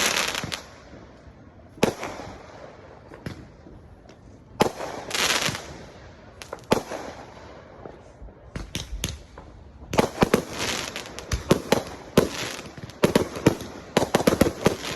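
Fireworks going off: separate sharp bangs every couple of seconds, some trailed by crackling, then from about ten seconds in a rapid run of many pops.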